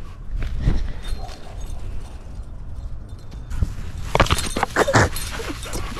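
Footsteps through dry grass, then about four seconds in a busier flurry of scuffling and rustling as a shepherd-mix dog lunges at and grabs a rubber frisbee held out to her.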